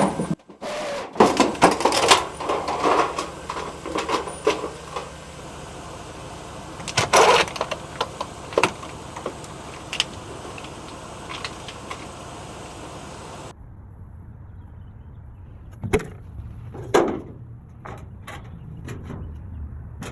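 Pickup truck engine running low and steady while the truck rolls onto garage door sections, with repeated crunches, knocks and creaks of the steel panels giving way. Loud crunches come in a cluster in the first few seconds, another about seven seconds in, and two more near the end.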